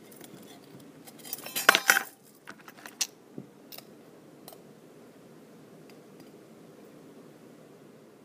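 Small metal earrings clinking and rattling against each other and a small plastic dish as they are picked through. A dense burst of clinks comes between about one and two seconds in, then a few separate clicks, and it goes quiet after about four and a half seconds.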